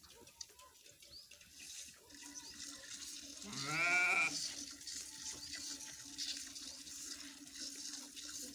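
Cow being hand-milked into a steel pot: streams of milk hiss into the pot with each squeeze in a repeating rhythm. A little under halfway through, an animal gives one loud bleating call, rising then falling, lasting about a second.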